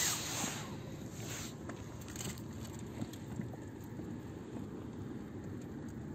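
Low steady outdoor rumble with scattered faint clicks; a hiss at the start fades out within the first second and a half.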